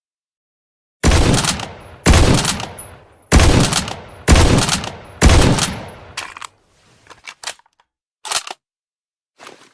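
K14 sniper rifle sound effect: five loud shots about a second apart, each trailing off in a long echoing tail. A few short, quieter clicks follow near the end.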